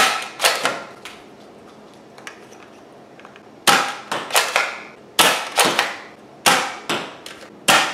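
Nerf Star Wars Stormtrooper blaster, a front-loading spring-powered toy, being primed with its slide and fired over and over: a run of sharp plastic clacks. There are two near the start, then a quieter gap, then seven or eight more in quick succession near the end.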